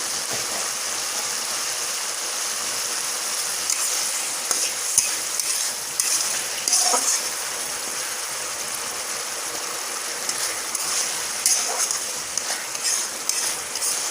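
Tomatoes and spice paste sizzling in hot oil in a pan, softening as they cook, with a spatula stirring and scraping the pan in spurts, once about four to seven seconds in and again near the end.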